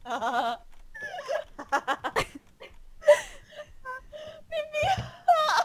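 A woman's uncontrollable laughing fit heard over a Skype call: short, high-pitched bursts of laughter with breaths between them.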